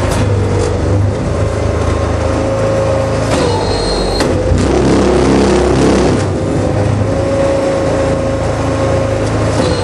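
Compressed earth block machine running under power: a steady engine drone with a low hum and a held tone. About three and a half seconds in, a brief high whine joins for about a second.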